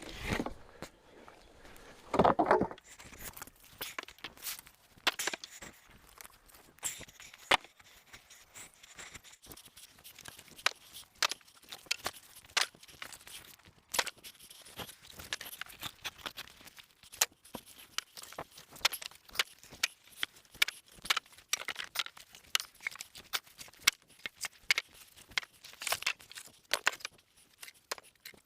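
Scattered light clicks and knocks at an irregular pace, with a louder thud about two seconds in; no saw is running.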